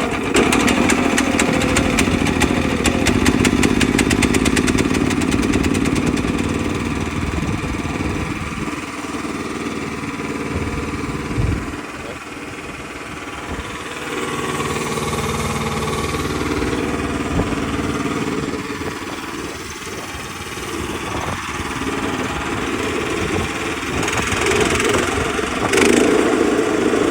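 Small gasoline engine of a DR STG 10366 stump grinder running just after a choked start from sitting unused. It runs continuously with rapid, even firing at first, dips in level around the middle and gets louder again near the end.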